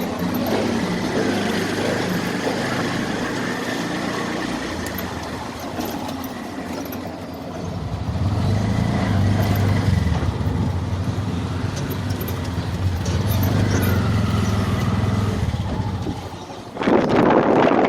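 Busy outdoor street ambience with a motor vehicle engine running close by, louder from about halfway through, and a short loud burst of noise near the end.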